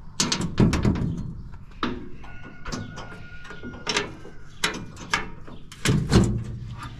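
Irregular metal clanks, clicks and knocks of hand tools working on a combine harvester's feeder house, with a thin steady squeal for a second or so near the middle.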